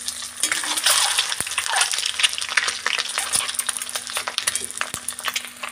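Peeled boiled eggs sizzling and crackling as they shallow-fry in hot oil in a steel kadhai. A metal spatula stirs and turns them, scraping and clinking against the pan.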